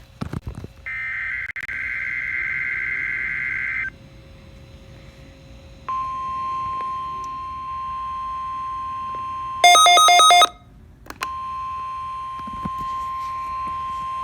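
Emergency-alert radio signals: a warbling data-burst screech first, then the NOAA Weather Radio warning alarm, a steady single tone of about 1050 Hz. About ten seconds in, the alarm tone breaks for a short, very loud blast of stacked tones and then resumes.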